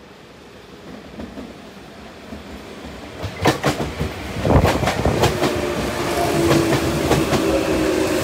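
Tokyu 9000 series electric commuter train pulling into a station, growing steadily louder as it nears. Its wheels clack sharply over rail joints and points about halfway through as the cars pass close, and a steady whine follows from the running gear.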